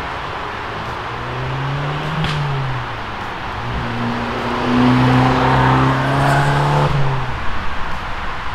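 Abarth 595C Pista's 1.4-litre four-cylinder with its Record Monza quad exhaust driving past. The engine note climbs and then drops at a gear change about two seconds in, pulls steadily higher as the car comes closer, and fades near the end as it goes by.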